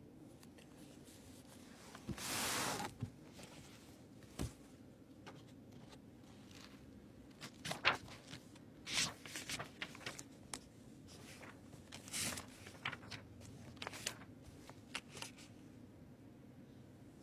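Paper handling, likely the pages of a book being turned and leafed through: one longer rustle about two seconds in, then a string of short papery rustles and clicks.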